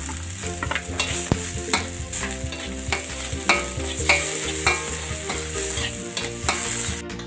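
Sliced garlic, shallots, chillies and tomato sizzling as they sauté in a wok, with a metal spatula scraping and tapping against the pan as they are stirred. The sizzle cuts off abruptly just before the end.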